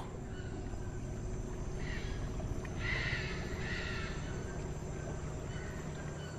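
A bird calling three times, about two to four seconds in, over steady low background noise.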